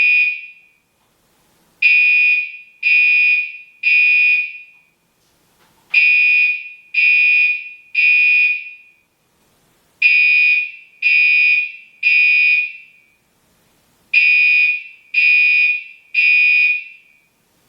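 Gentex Commander 3 fire alarm horn sounding the temporal-three evacuation pattern: three loud, buzzy high-pitched blasts, then a pause, repeating about every four seconds.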